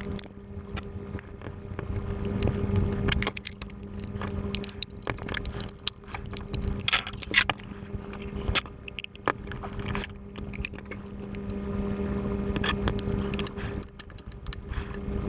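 Irregular small metallic clicks and knocks as a metal hard-drive mounting frame, a plastic bracket and small screws are handled and fitted together, over a steady low hum.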